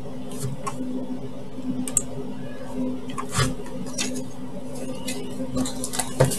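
Small cardboard parcel being handled: scattered taps, scrapes and rustles of cardboard, over a steady low hum.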